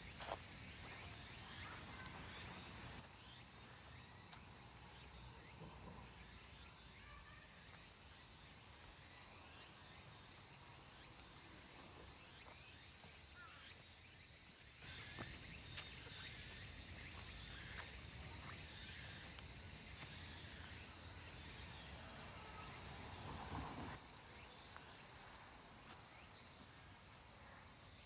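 A steady, high-pitched drone of insects in the trees. It grows louder about fifteen seconds in and drops back about nine seconds later.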